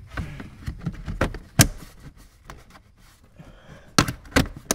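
Nissan Xterra's plastic kick panel being pressed and tapped back into place by hand: several sharp plastic knocks and clicks, the loudest about one and a half seconds in and three more close together near the end.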